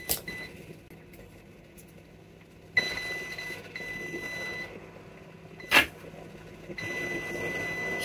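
Digital multimeter in continuity mode beeping as its probes touch across a motherboard capacitor: a steady high beep about three seconds in that lasts about two seconds, then again near the end, with a couple of sharp clicks between. The beep means the capacitor reads as a short, a sign that it has failed.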